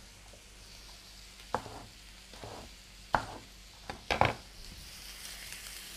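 A kitchen knife cuts a green capsicum on a wooden cutting board, giving a handful of separate knocks spread over a few seconds. Behind them is a faint steady sizzle of carrots, potatoes and tomatoes frying in butter on a grill pan.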